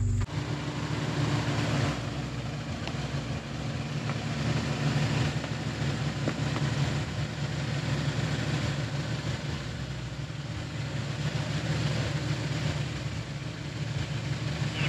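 Jeep engine running steadily at low revs, with a broad, even rushing noise over it.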